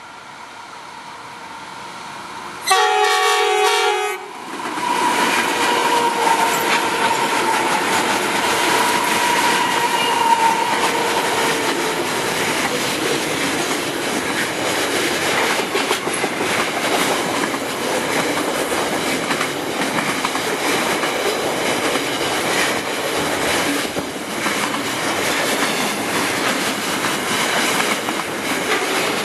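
A diesel freight locomotive approaches with a rising rumble and gives one loud horn blast of about a second and a half, roughly three seconds in. It passes, and a long container train follows, its wagons' wheels rumbling and clattering over the rails.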